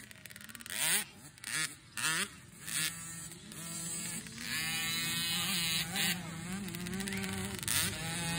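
Small youth dirt bike engine buzzing at high revs, its pitch rising and falling as the rider throttles on and off around the track. A few short bursts of noise come in the first couple of seconds.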